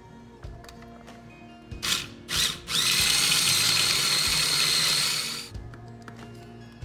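Food processor motor pulsed briefly twice, then run steadily for about three seconds with a high whine, its blade chopping mint and peanuts into a chutney paste.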